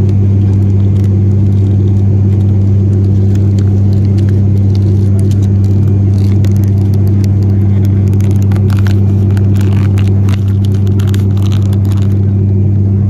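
Steady, loud drone of a passenger aircraft cabin in flight, a deep even hum. Rustling and clicks from about six seconds in until about twelve seconds.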